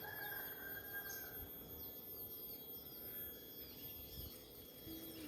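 Faint outdoor background noise with small birds chirping repeatedly throughout.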